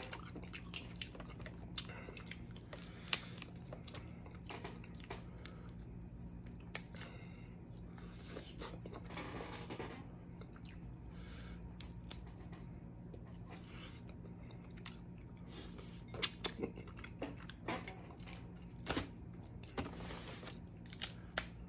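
Someone eating snow crab legs: scattered sharp cracks and clicks of the shells being broken and picked apart, with chewing in between.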